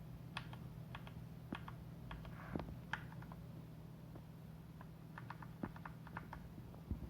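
Typing on a Varmilo VA108M mechanical keyboard with Cherry MX Speed Silver linear switches: irregular keystrokes, with a quick run of keys about five seconds in.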